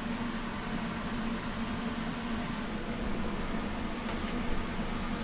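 Steady low hum with a constant hiss from a kitchen appliance running, with a faint tick about a second in.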